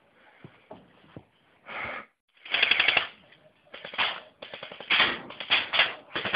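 Airsoft electric rifles firing full-auto in about half a dozen short bursts of rapid clicking shots, starting near two seconds in and coming one after another to the end.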